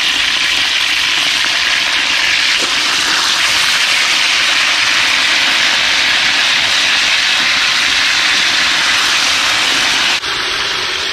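Round scad (cá nục) frying in hot oil with garlic in a wok, a loud, steady sizzle.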